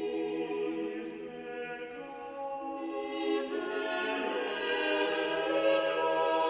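Church choir singing slow, sustained notes of a sung part of the Mass, swelling a little louder towards the end.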